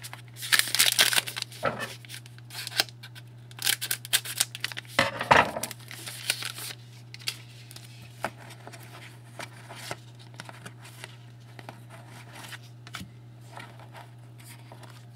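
A trading card pack wrapper being torn open and crinkled, with a dense rustle for the first several seconds. After that come sparse light clicks and taps as the cards are handled, over a steady low hum.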